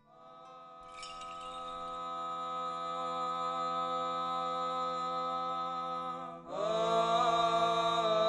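Eastern Orthodox church chanting. A long vocal note is held over a steady low drone, and about six and a half seconds in a louder, fuller note slides in and carries on with small ornaments.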